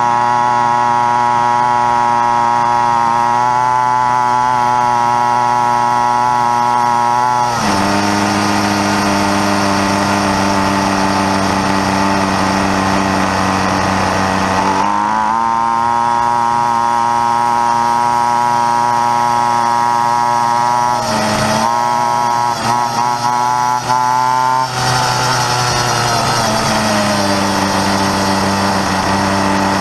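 Pocket bike's small two-stroke engine buzzing at high revs as it rides. The pitch steps up and down several times, dips briefly a little past two-thirds through, and falls toward the end as it slows.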